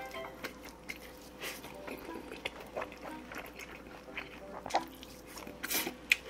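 A person slurping mouthfuls of spicy stir-fried noodles and chewing them, with wet sucking, smacking and clicking mouth sounds. The loudest slurps come in a quick run near the end.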